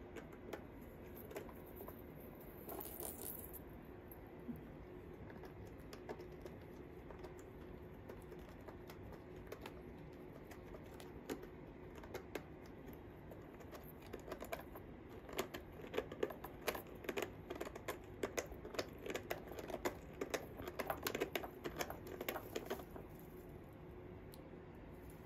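Kitten playing in a plastic circle-track ball toy: scattered light plastic clicks and rattles that turn into a dense, busy run of clicking over the second half, over a faint steady hum.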